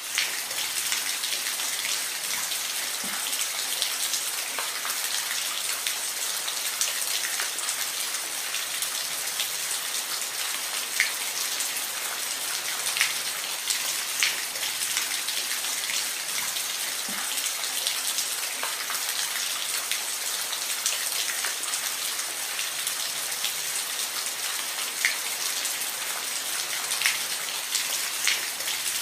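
Steady rain falling, an even hiss with scattered sharper drops ticking close by.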